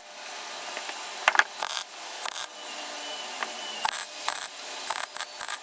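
MIG welder laying short tack or stitch welds on thin sheet steel: a series of brief crackling bursts, about seven, each a fraction of a second long.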